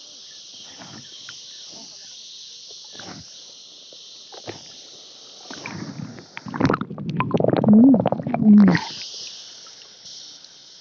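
Water sloshing and gurgling around a camera held right at the water's surface, with a steady high hiss above water. About six and a half seconds in it dips under: for some two seconds the sound turns loud and muffled, with crackles and two short low hums, then the hiss comes back.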